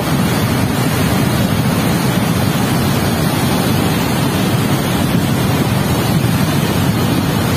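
Muddy flash-flood water rushing down a river channel, a loud, steady rush with no let-up.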